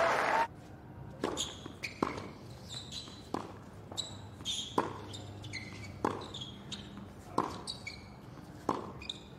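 Tennis rally on a hard court: sharp racket strikes on the ball about every 1.3 seconds, with lighter ticks and short high squeaks between them, over a quiet crowd. A louder passage cuts off suddenly about half a second in.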